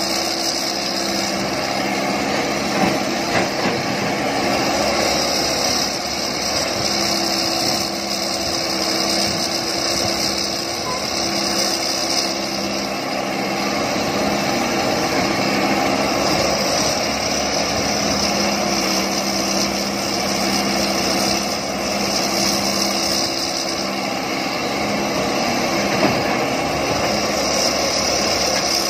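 Diesel engine of a wheeled Hitachi/John Deere excavator running steadily under load as it digs, with other excavators working alongside. There are a couple of brief knocks, about three seconds in and again near the end.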